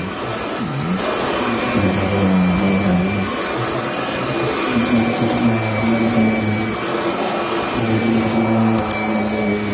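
2011 Kirby G10 Sentria upright vacuum running steadily: a continuous rush of air with a thin high whine over it and a low hum that wavers in pitch. It still runs pretty good after sitting mostly unused.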